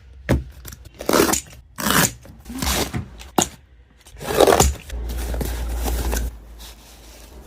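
Packaging of small die-cast model cars being handled and opened: a string of short scrapes and rustles of cardboard and plastic, with a couple of sharp clicks, and a low hum for about a second past the middle.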